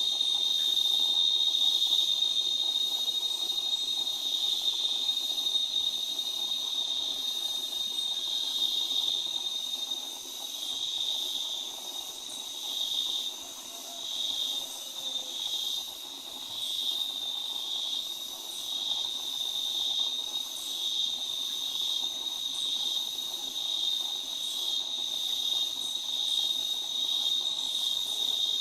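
Steady, high-pitched insect drone, the cicada-like ambience of a tropical forest. It pulses about once a second for several seconds midway.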